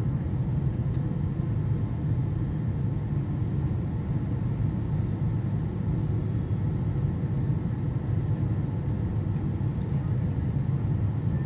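Steady low rumble inside the cabin of a Boeing 777-200 descending on approach: its Pratt & Whitney PW4000 engines and the airflow over the airframe, heard through the fuselage from a seat over the wing.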